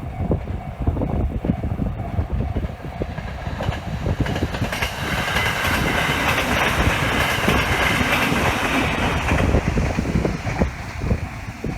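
A train passing over a level crossing, its wheels clattering on the rails, loudest from about five to nine seconds in, with a higher rushing sound at its peak. Wind buffets the microphone throughout.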